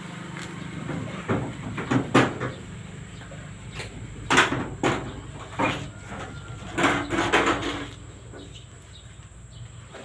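Knocks and metallic bangs from the pickup's tailgate and bed being handled to unload it, a scatter of sharp hits in the first eight seconds, then quieter.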